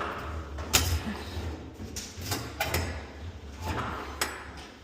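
Irregular sharp knocks and clinks of metal hardware being handled during garage door torsion spring work, about eight of them spread over a few seconds, over a low steady hum.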